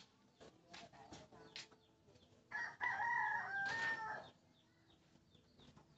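A rooster crowing once, a pitched call of nearly two seconds starting about two and a half seconds in, with a few light knocks before it.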